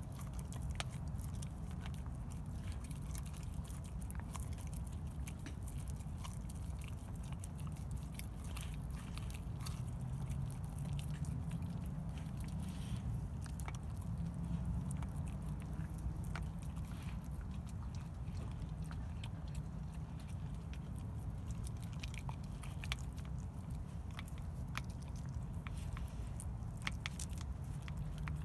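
A dog chewing and gnawing on a slab of raw pork ribs: scattered wet clicks of teeth on meat and bone, coming more often near the end.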